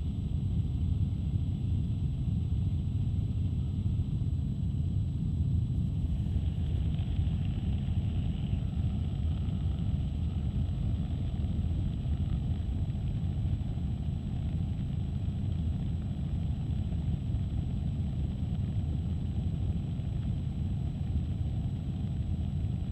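Helicopter noise heard from inside the cabin in flight: a steady, unbroken low rumble of rotor and engine.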